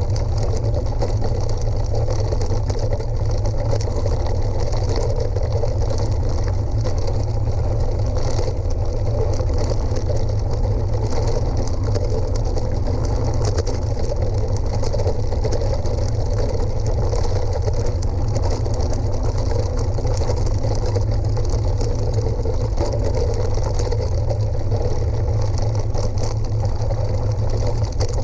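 Steady rumble of a vehicle rolling down a rough gravel track at about 25 km/h, with heavy wind buffeting on the action-camera microphone and a constant patter of small clicks from the stones.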